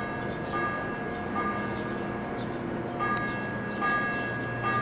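Bells ringing, struck again and again at a steady pace with each set of notes ringing on, over a steady low hum that swells near the end.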